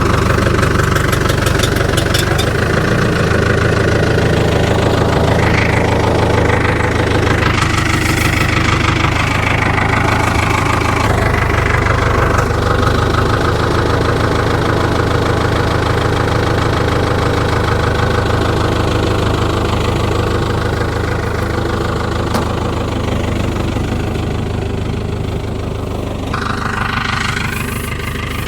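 Farm tractor engine running steadily close by while it handles big hay bales, easing off a little near the end.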